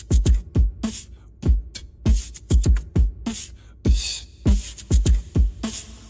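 Background music: a hip-hop style beat of deep kick-drum thumps and sharp snare-like hits, several to the second, with little melody.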